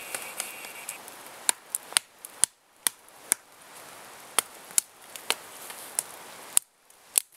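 Bear Grylls Ultimate survival knife hacking at the small limbs of a conifer. It gives a dozen or so sharp, irregular chops of blade on wood, some in quick pairs.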